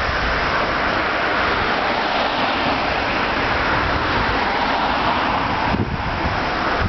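Steady street and vehicle noise, a continuous hiss-like rumble, with wind buffeting the microphone about six seconds in.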